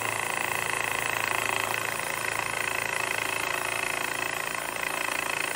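Small water-cooled rock saw running with its blade grinding steadily into a banded rock, which she believes is banded chert: a steady high whine over a low motor hum.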